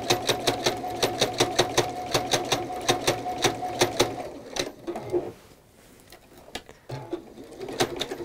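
Juki computerised sewing machine stitching at a slow, even pace, about five needle strokes a second over the motor's hum. It stops about four seconds in and makes a few more stitches near the end. The stitches are skipping, which the sewer thinks needs a rethread or may come from a part misaligned during a clean.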